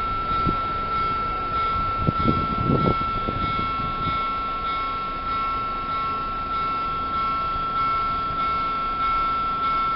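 Electronic warning bell of a railway level crossing ringing on one high tone in evenly repeated strikes, a little more than one a second. Low traffic rumble in the first three seconds or so.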